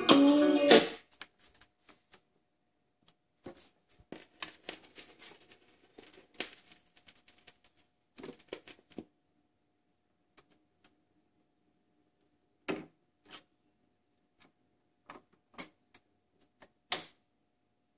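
Record music cuts off about a second in as the reject control of the Marantz 6100 auto-return turntable is used. Then the auto-return mechanism clicks and whirs faintly while the tonearm lifts and swings back to its rest. The sharpest click comes near the end.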